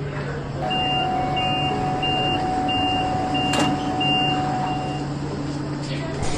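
Subway train door-closing warning: a run of about seven short high beeps, roughly one and a half a second, over a steady lower tone and the train's low rumble, ending about five seconds in. A single sharp click sounds midway.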